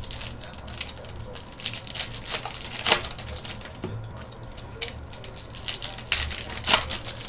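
Foil wrapper of a Fleer Ultra Spider-Man trading-card pack crinkling in the hands and being torn open: a run of short crackles and rips, loudest about three seconds in and again near the end.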